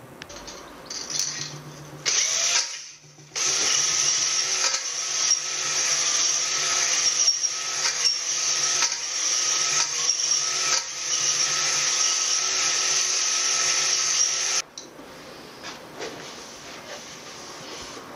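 Cordless drill running on the top of an engine block: a couple of short runs, then held at a steady speed for about eleven seconds before stopping suddenly.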